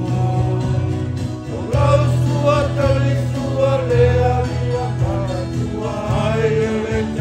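A choir singing a hymn for the offertory of a Samoan mass, over sustained low accompanying notes.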